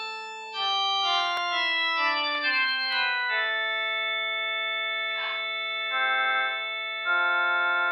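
Electronic keyboard played on an organ voice: a stepped descending run of single notes, then held chords that change twice near the end.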